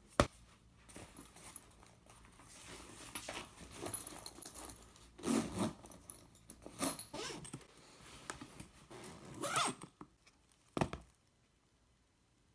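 A laptop lid clicks shut, then a bag is handled: rustling and several quick zipper pulls as a backpack is zipped closed.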